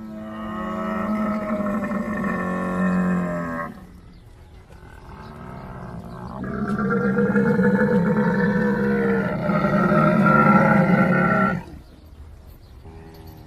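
Camel calling in two long, deep, drawn-out calls. The first lasts about four seconds; the second, louder one lasts about five seconds. A quieter stretch lies between them.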